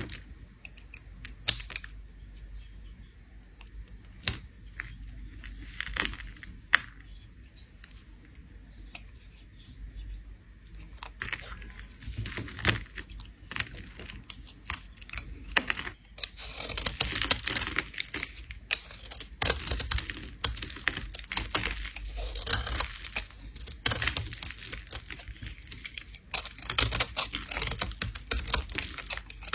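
A bar of soap being scraped with a blade, giving crisp crackling scrapes. The first ten seconds hold only a few scattered clicks and taps. Dense scraping starts about ten seconds in and grows louder and busier from about sixteen seconds.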